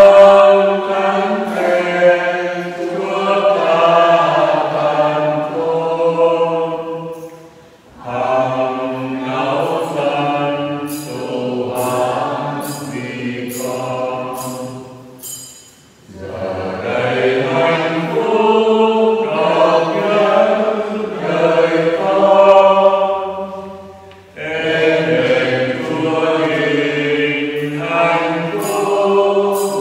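Voices singing a slow sacred chant in long phrases of about eight seconds, with short breaks between them. A few high clinks sound around the middle and again near the end.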